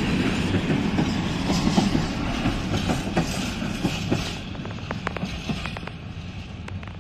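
Open coal wagons of a freight train rolling past, wheels clattering and clicking over the rail joints. The noise fades about four seconds in as the last wagon passes and draws away, leaving scattered sharp clicks.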